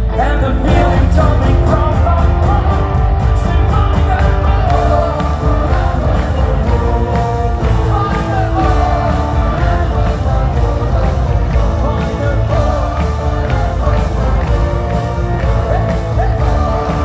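Live rock band playing a cover song with singing over drums, guitars and bass, heard from the audience in a large arena.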